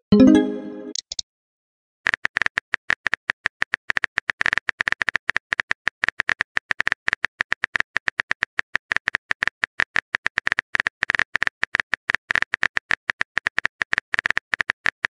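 Phone messaging sound effects. A short message-arrival chime comes right at the start. After about a second of silence, a long run of rapid keyboard-tap clicks fills the rest.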